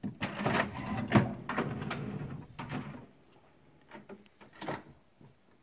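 HP DeskJet 3835 inkjet printer running its cartridge-cleaning cycle: the print carriage and service-station mechanism clatter and click for about three seconds, then a few scattered clicks follow.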